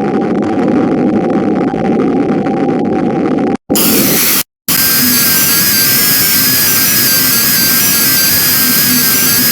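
Harsh synthesized bytebeat noise from a GDI malware payload. A dense low buzzing drone breaks off into two brief dead silences about three and a half and four and a half seconds in, with a short bright burst between them. It then switches to a loud, bright hiss carrying a steady high whistle.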